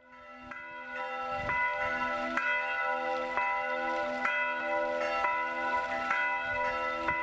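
Church bells ringing, struck about once a second, fading in at the start.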